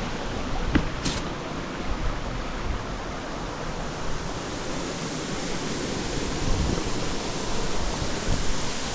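Steady rushing outdoor noise, like wind or running water, with a few faint clicks.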